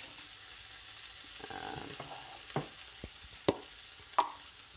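Floured Atlantic cod fillet frying in hot oil in a pan: a steady high sizzle, with three sharp clicks about two and a half, three and a half and four seconds in.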